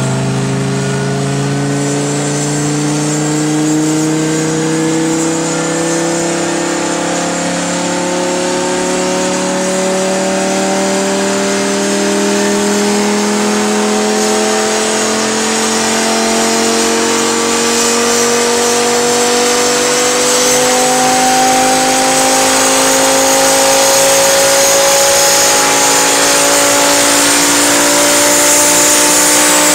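Audi R8 V10 engine through a stainless-steel Supersprint exhaust, pulling under load on a chassis dynamometer, its pitch climbing slowly and steadily as the revs rise and getting slightly louder toward the end.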